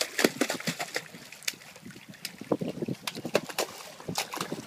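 A hooked stingray thrashing at the surface, splashing the water in a rapid, irregular run of splashes.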